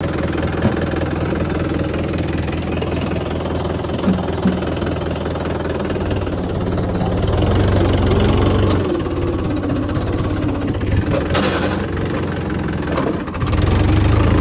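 Mahindra tractor's diesel engine running steadily with a knocking clatter. It gets louder about six seconds in, dips briefly near the end, then picks up again. A short rushing noise comes a little past eleven seconds.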